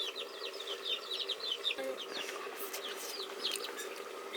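Chickens cheeping: a rapid, continuous run of short high calls, over a steady hum.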